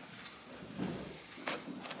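Light scraping and rustling as carpet is worked and tucked in by hand against the base of a pillar, with a sharp click from the fitting tool about three-quarters of the way through.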